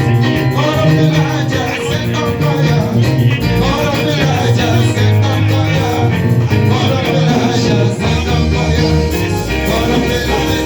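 Upbeat music in a Latin dance style, with singing over a steady, prominent bass line.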